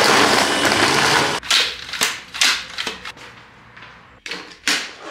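A kitchen blender runs and is switched off about a second and a half in. A string of short knocks and clatters follows.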